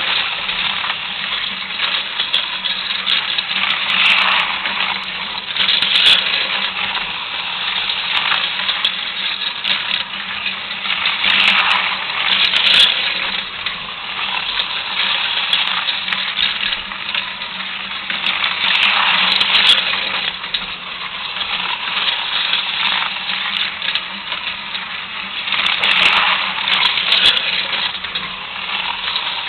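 Aurora AFX HO-scale slot trucks running on plastic track: a steady buzzing rattle of the small motors and pickups that swells each time the cars come round close, every six to seven seconds, over a faint steady hum.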